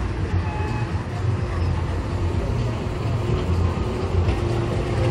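Low, steady rumble of a small fairground train ride running on its rail track.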